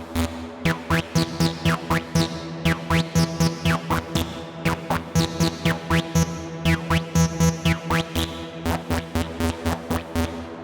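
Electronic music from a VCV Rack software modular synthesizer patch: a fast, even clicky pulse at about four hits a second over a steady low drone, with repeated falling filter sweeps.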